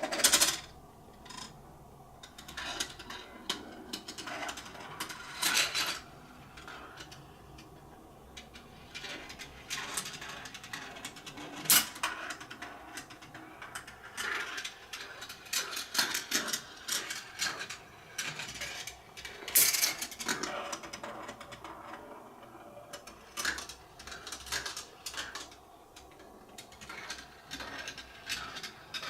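Marbles running through a GraviTrax plastic marble-run track, with irregular sharp clicks and clatters as they drop and strike the pieces, some in quick clusters, and a soft rolling rattle between them.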